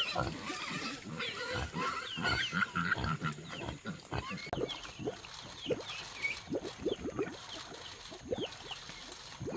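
Pigs grunting, with short higher squeals or chirps. Through the second half there is a dense run of quick clicks and smacks.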